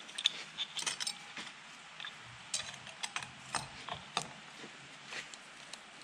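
Irregular small metallic clicks and clinks as the camshaft, cam gear and timing chain are handled in the cylinder head of a Polaris RZR 170 engine. The clicks bunch up near the start and again in the middle, then thin out.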